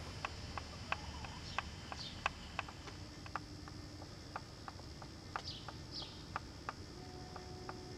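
Irregular sharp clicking from the camcorder's own mechanism, a few clicks a second, over a low background hum. A few short, high, falling chirps come in now and then.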